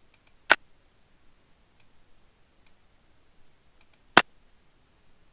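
Two playbacks of a recorded sharp impulse, each a single short, loud click, about three and a half seconds apart: first the echo segment of the recording, then the direct sound, used to time the sound's reflection.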